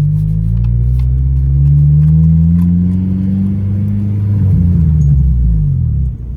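Honda Civic Si (FA5) engine and exhaust heard while driving, the engine note rising in pitch under acceleration, easing, rising again and then dropping. The car has an exhaust leak, which the owner points out.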